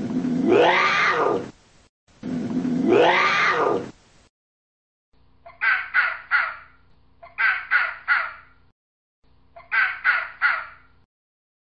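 Animal calls. First come two long calls, each rising and then falling in pitch. After a pause come three bursts of short, harsh calls, three calls in each burst.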